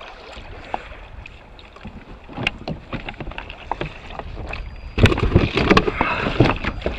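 Knocks and rustling on a kayak as a snapper is handled and stowed under the deck, with a louder burst of handling knocks about five seconds in. Wind on the microphone underneath.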